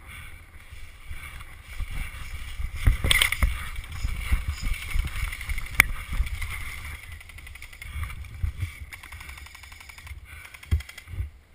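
Irregular low thumps and rustling from a body-worn camera carried by a moving player, with a single sharp click about six seconds in.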